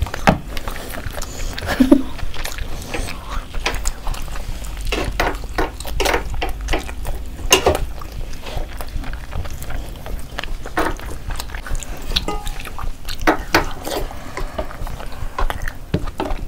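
Several people eating chicken curry and fried rice with their hands: wet chewing, lip smacks and squelching of rice being mixed with gravy, heard as a run of irregular short clicks and wet smacks.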